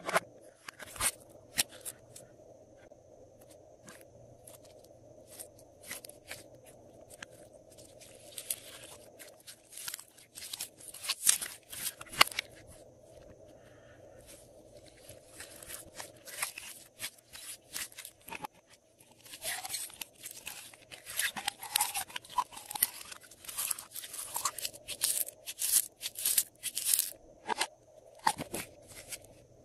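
Slime being squeezed and stretched by hand, crackling and popping in quick runs of sharp clicks; the crackling is thickest around a third of the way in and again through most of the last third.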